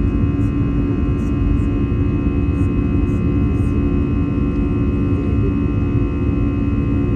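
Airbus A320's jet engines during the climb after takeoff, heard inside the cabin: a steady low rumble with a steady hum and several high whining tones over it.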